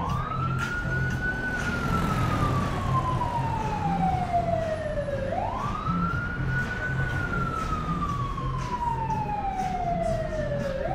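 Emergency vehicle siren on a slow wail: each cycle rises quickly in pitch, then falls slowly over about four seconds. Two full cycles sound, and a third rise begins near the end.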